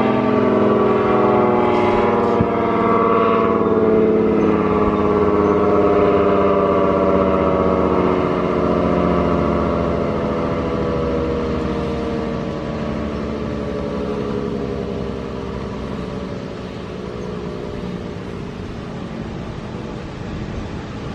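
ACA Allertor 125 10/12-port dual-tone rotating warning siren winding down at the end of its attack signal: its chord slides slowly and steadily lower in pitch and fades. Strong wind gusts buffet the microphone and the siren sound throughout.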